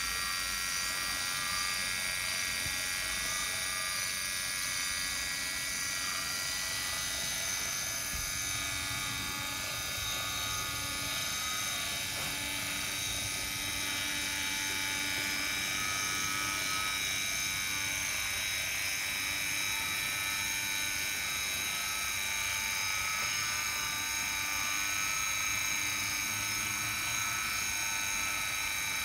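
Brass HOn3 model GE 50-ton diesel locomotive running along the track, its replacement can motor, universal joints and heavily reduced gearing giving a steady whine with several high, even tones.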